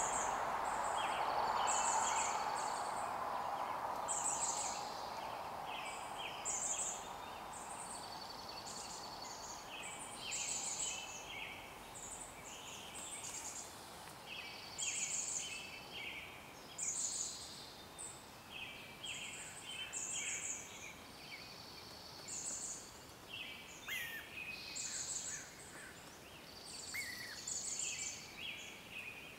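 Wild birds chirping in short, high-pitched bursts that repeat every second or two, over a steady hiss that fades away during the first several seconds.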